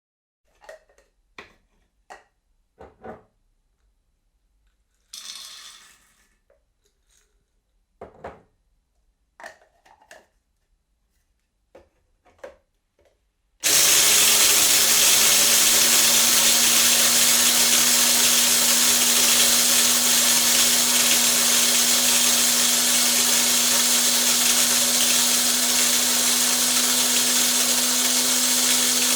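Electric coffee grinder. A few scattered clicks and knocks and a short rustle come first, then the motor switches on abruptly about halfway through and runs steadily, a constant hum under a dense grinding noise as the beans are ground.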